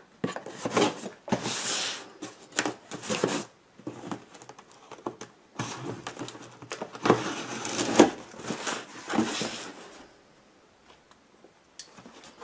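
Packing tape being slit with a knife and torn off a cardboard shipping box, with the cardboard rustling and scraping, in two spells of ripping separated by short pauses.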